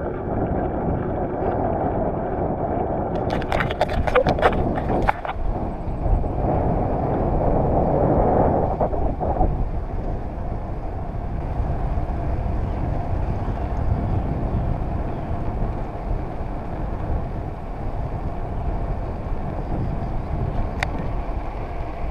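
Steady wind rush on the microphone and road rumble from a bicycle being ridden. A quick cluster of clicks and rattles comes about four seconds in, and a single click near the end.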